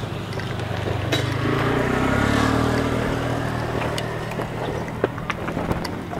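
Old stripped-down motorcycle's engine running, revved up about two seconds in and then easing back, with a few sharp clicks near the end.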